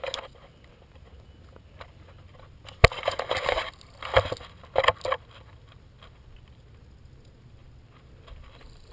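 Close-up handling noise on a helmet-mounted camera: one sharp click about three seconds in, followed by a few brief scuffing rubs as the helmet is adjusted.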